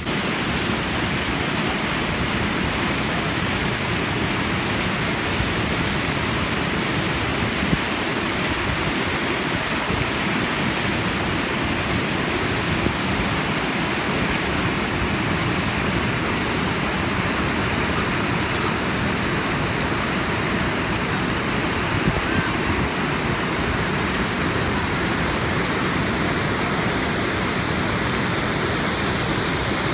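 Mountain river running fast over rocks in whitewater rapids: a steady, loud rush of water.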